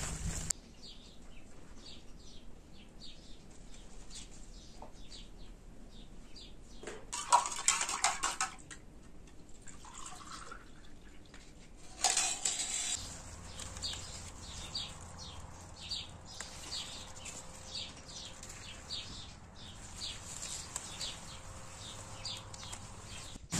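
Small birds chirping, short high chirps repeating about once or twice a second, with a brief louder rustling noise about a third of the way in.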